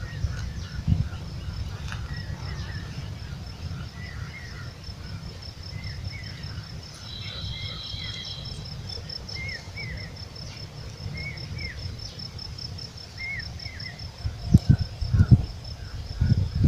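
Insects chirping in a steady fast pulse, with scattered short bird chirps and a low steady rumble. A few low thumps come near the end.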